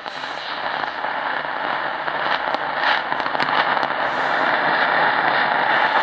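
Tecsun PL-680 radio's speaker hissing and crackling with AM static, scattered clicks through it, as it is tuned across empty medium wave frequencies between stations. The radio does not mute while tuning, so the noise between stations plays through.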